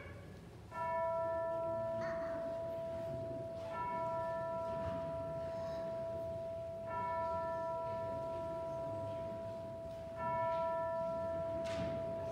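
A single bell tolled slowly, struck four times about every three seconds, each strike ringing on with a clear sustained tone until the next.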